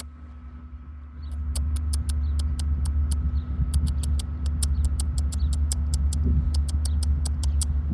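A person calling squirrels with rapid, sharp mouth clicks, about four a second, starting about a second in, over a steady low rumble.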